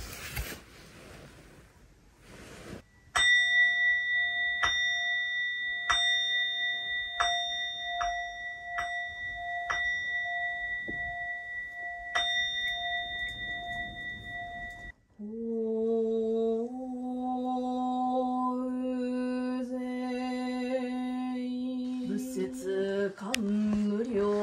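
A Buddhist bowl bell (rin) is struck about ten times, the strikes coming quicker toward the end, each one ringing on, until the ringing is stopped. A single voice then begins chanting a sutra in long, held notes.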